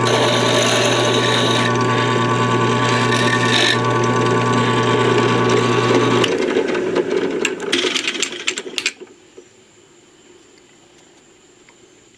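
Drill press motor running with an end mill cutting into a metal die-cast car base, the cutting noise coming and going. About six seconds in, the motor is switched off and winds down, with a few clicks and rattles before it falls quiet.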